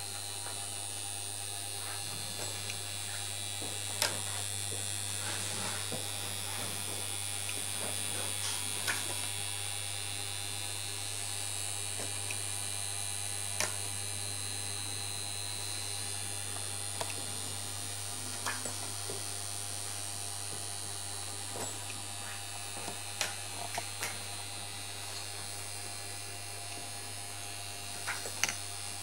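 Home-built punched card reader, made of metal construction-kit parts, running with a steady electric hum and motor buzz, overlaid by scattered small mechanical clicks and a few sharper ticks.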